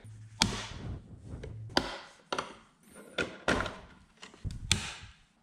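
Sharp plastic clicks and knocks, about half a dozen, as a stock turn-signal lens is pried out of a car's side-mirror housing against its retaining clips. A low hum sounds under the first second and a half.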